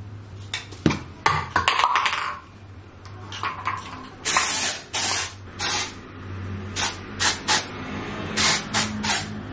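Aerosol hair-spray cans being sprayed in hissing bursts: one of about half a second some four seconds in, then a run of short quick bursts. A few clicks and rustles come first.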